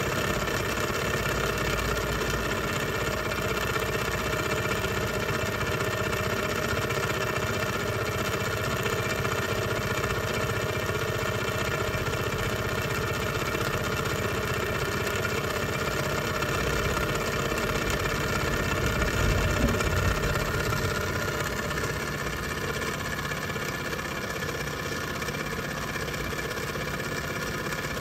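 Model stationary steam engine running steadily, its boiler fired by a hydrogen gas burner.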